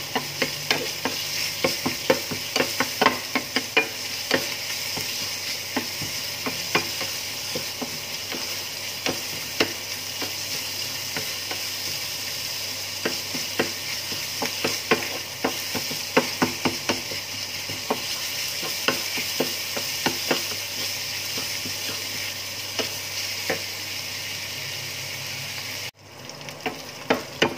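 Minced meat and sliced scallions sizzling steadily in a hot ceramic-coated frying pan, with irregular scrapes and taps of a wooden spatula against the pan as they are stir-fried. The sizzle cuts out abruptly near the end, then starts again.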